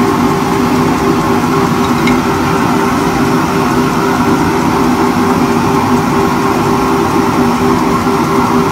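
Workshop machinery running steadily: a constant motor hum over a rushing noise.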